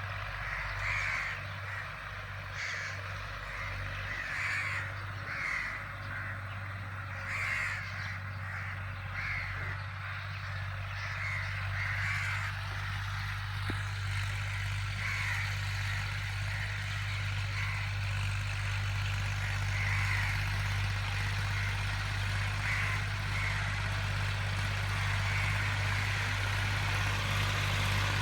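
Tractor engine running steadily, slowly getting louder, with repeated short bird calls over it, about one a second in the first half and fewer later on.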